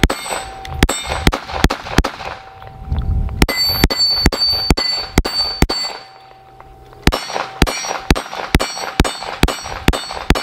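Rapid string of .22 Magnum pistol shots from a Smith & Wesson M&P 22 Magnum, with steel targets clanging and ringing on hits. The firing stops for about a second just past the middle, then picks up again at a quicker pace of about three to four shots a second.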